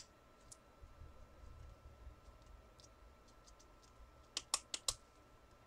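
Faint clicking at a computer keyboard and mouse: one sharp click at the start, a few scattered light ticks, then a quick run of about five clicks about four and a half seconds in. A faint steady hum lies underneath.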